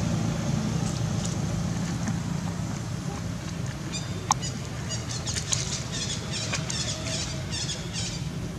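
Outdoor background with a steady low rumble, a single short squeak about four seconds in, and then a run of quick, high chirping calls in short clusters.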